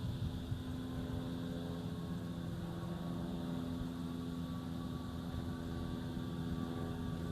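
Steady engine or motor drone with a low hum, its pitch holding almost level throughout.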